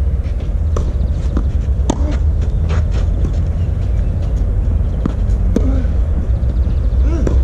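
Tennis rally on a clay court: tennis balls struck by rackets and bouncing, several sharp pops about a second or more apart, over a steady low rumble.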